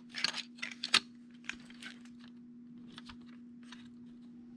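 Plastic LEGO bricks clicking and rattling as they are pressed together and fitted onto a baseplate by hand: a quick run of clicks in the first two seconds, the sharpest about a second in, then a few scattered clicks.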